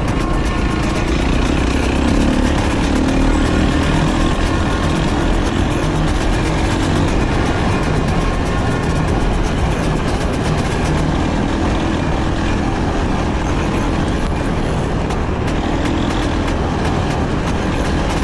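Four-stroke 450 cc dirt bike engine running steadily as the bike is ridden.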